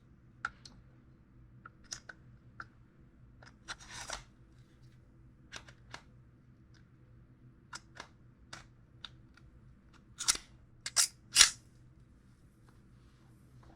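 Scattered metallic clicks and snaps of a freshly oiled Glock 19 Gen 6 pistol being handled and put back together, with a brief scrape about four seconds in and a quick run of louder, sharper clicks a little past ten seconds in.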